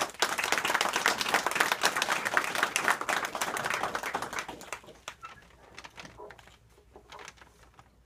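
Audience applauding. It starts all at once, stays strong for about three seconds and then dies away.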